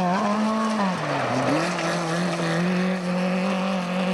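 Small hatchback rally car's engine at high revs on a gravel stage. The revs drop sharply about a second in, then climb back and hold steady as the car slides through the corner.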